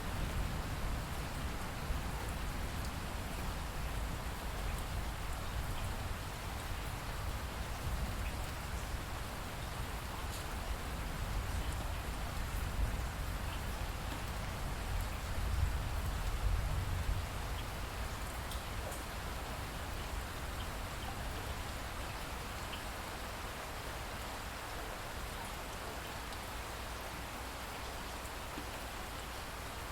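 Steady rain falling, an even hiss with faint scattered drop ticks, over a low rumble that swells about halfway through and then eases.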